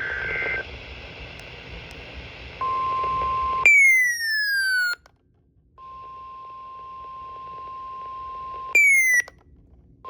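Emergency Alert System tones: a steady electronic beep tone twice interrupted by loud falling electronic sweeps, with a short break of silence between them.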